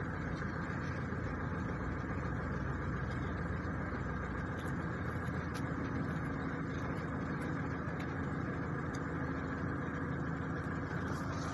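Steady low mechanical hum of an idling engine, with a few faint light clicks over it.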